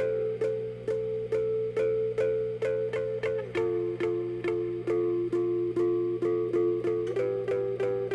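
Instrumental music on a plucked string instrument: evenly paced notes about three a second, the chord shifting about three and a half seconds in and again near the end, over a steady low hum.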